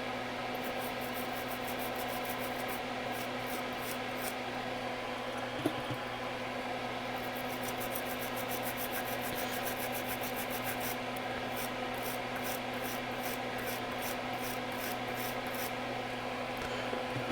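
Brisk back-and-forth scrubbing strokes, about three a second, as a brush works isopropyl alcohol over a freshly soldered USB stick circuit board to clean off the flux; the scrubbing pauses for a few seconds near the middle. A bench fan hums steadily underneath.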